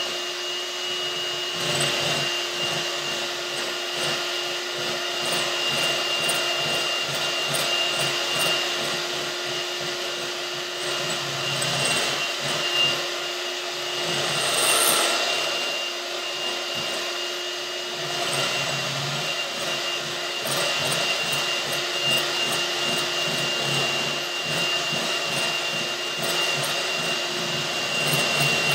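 White electric hand mixer running steadily, its beaters whipping double cream in a glass bowl toward soft peaks.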